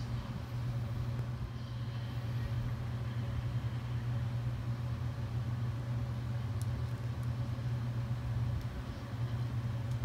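A steady low hum with no change in pitch or level, and a few faint clicks of small plastic figure parts being handled about two-thirds of the way through.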